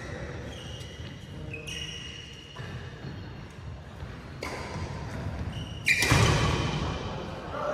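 Badminton play in a large indoor hall: shoes squeaking on the synthetic court mat and rackets striking shuttlecocks, with a louder burst of noise about six seconds in.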